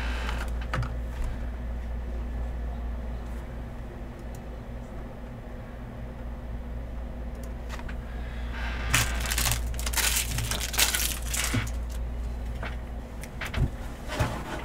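Steady low hum, with a dense spell of rustling and clicking about nine to twelve seconds in and a few sharp knocks near the end.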